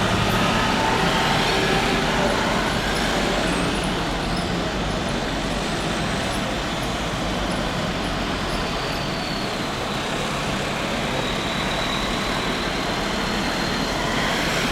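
Jet airliner engines running: a steady, loud rushing noise with a faint high whine that slowly falls, then rises again in the second half.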